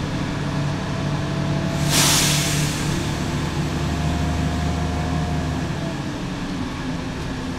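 Inside a Heuliez GX 127 city bus under way: its Iveco Tector 6 six-cylinder diesel engine running steadily under the ride noise. About two seconds in there is a short, loud hiss.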